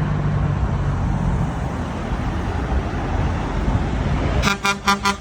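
Road traffic noise from passing vehicles, with a low engine hum early on. Near the end the traffic noise cuts off abruptly and a loud pitched sound begins, pulsing about six times a second.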